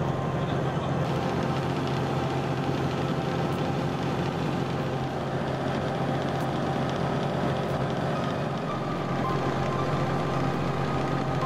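A boat's inboard engine running steadily under way, a constant low hum with no change in speed.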